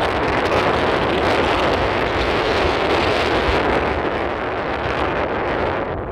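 Steady rush of wind and road noise from a car on the move. The hiss dulls slightly near the end.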